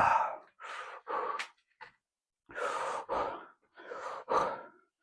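A man breathing heavily, a string of deep breaths in and out, loudest at the start, as he catches his breath after a set of squats.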